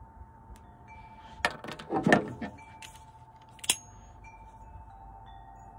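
Clicks and rattling from a cap gun and its caps being handled and loaded, loudest in a cluster about two seconds in, then a single sharp click with a brief metallic ring a little later. A faint steady tone runs underneath.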